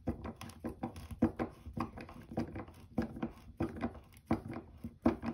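Channellock 6-in-1 screwdriver with a #2 Phillips bit turning a drywall screw into a pine board by hand: a string of short creaks and clicks, about three a second, from the screw biting into the wood and the driver shifting in the grip.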